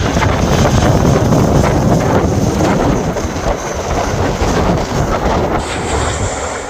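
Strong gusty wind buffeting the microphone, a loud low rumble that eases off gradually over the second half.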